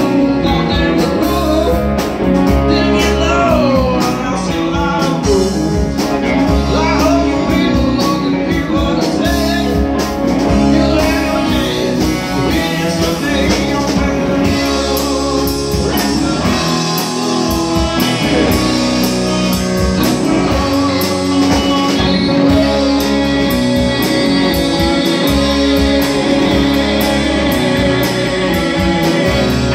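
Live blues-rock band playing: electric guitars over bass guitar and drums, with pitch-bending melody lines over a steady groove.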